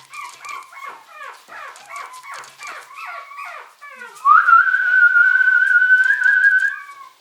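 Chihuahua puppies whining and yelping in short, high, falling cries, two or three a second. About four seconds in, one long, loud, high whine holds steady for about two and a half seconds.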